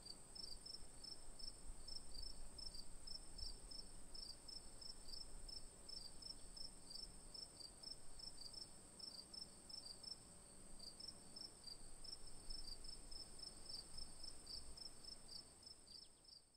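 Faint insect chirping: a steady high trill with short, regular chirps about three times a second.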